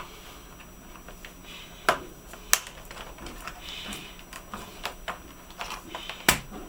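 Sharp plastic clicks and snaps as a panel is pried off a Toshiba Dynabook F40 laptop, a few loud ones, the loudest about two and a half seconds in and again near the end, with smaller ticks between.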